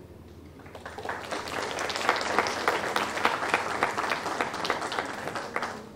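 Audience applauding, many hands clapping together. The applause swells about a second in and dies away near the end.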